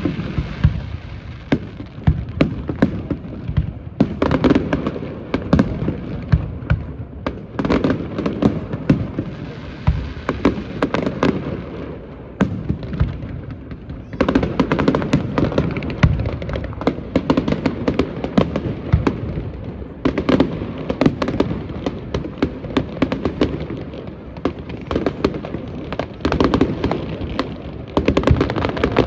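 Fireworks display going off in a dense, continuous barrage of many rapid bangs, swelling louder several times.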